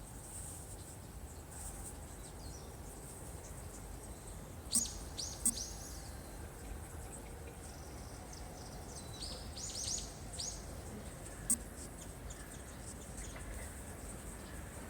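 Small birds chirping: a few short, high, downward-sliding chirps about five seconds in and a quick run of them around ten seconds, with a few sharp ticks, over a faint steady low rumble.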